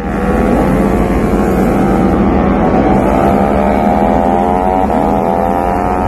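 KTM Moto3 bike's 250 cc single-cylinder four-stroke race engine running steadily on the roller starter, its pitch creeping slowly upward.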